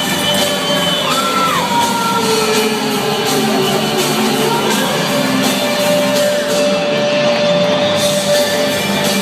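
Rock music played loud over an arena sound system, with a crowd shouting and whooping over it.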